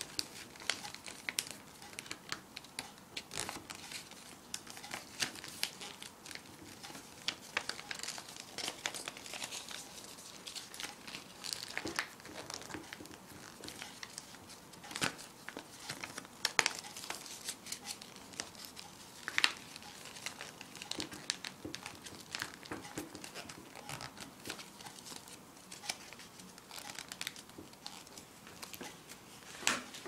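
A sheet of white paper being folded and creased by hand: irregular crinkling and rustling, with scattered sharp crackles as the folds are pressed down.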